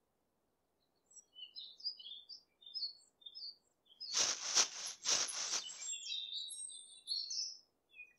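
Forest ambience of small birds chirping in short, high calls, starting about a second in. Two short bursts of noise come about four to six seconds in, then the chirping goes on.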